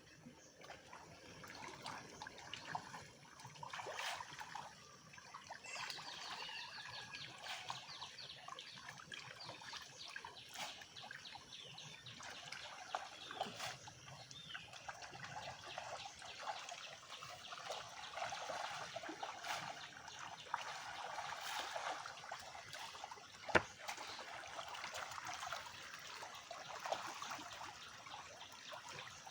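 Water trickling and splashing in a small pond, with many small scattered splashes and ticks, and one sharp click about two-thirds of the way in.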